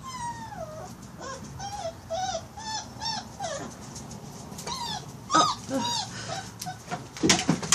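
Newborn puppy crying: one long falling whine near the start, then a string of short, high whimpers, about two a second. A few sharp knocks or rustles near the end.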